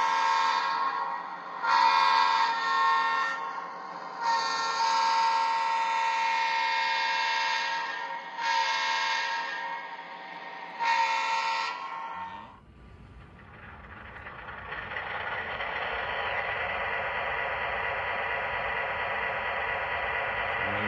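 Lionel RailSounds 5.0 sound system in an O-gauge model DDA40X diesel locomotive playing its diesel air horn sound in five blasts, the third one long, through the model's speaker. About twelve seconds in the horn stops, and the recorded diesel prime mover sound comes in and rises to a steady run.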